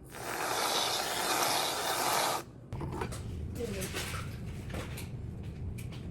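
A steady hiss lasting about two and a half seconds that cuts off suddenly, followed by a low steady hum with light clicks and faint voices.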